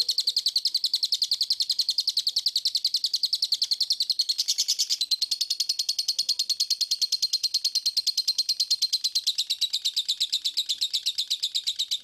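Fischer's lovebird ngekek: one long, unbroken chattering trill of rapid high notes, about eight or nine a second, with no pause. This long trill is what lovebird keepers prize.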